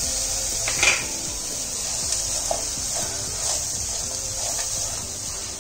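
Chopped vegetables sizzling in hot ghee in a pan, a steady hiss, with a few knocks and scrapes of a spatula against the pan, the loudest about a second in.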